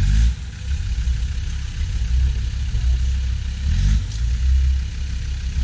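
Land Rover Discovery TD5's five-cylinder turbodiesel engine working hard through deep mud, revving in surges that rise and fall, with pitch climbing near the start and again about four seconds in.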